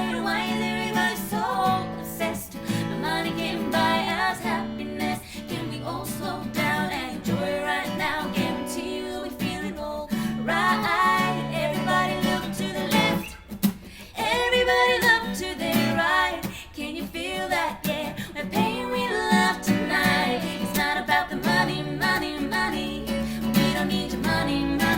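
Background pop music: strummed acoustic guitar with a woman singing, dropping out briefly about halfway through.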